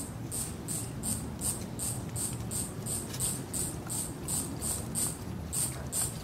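An insect chirping steadily, short high chirps at about three a second, over a low steady rumble.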